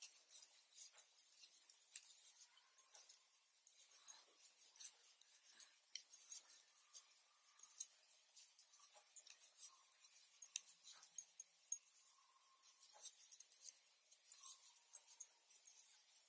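Hand knitting on metal needles: faint, irregular light clicks and clinks of the needles, a few a second.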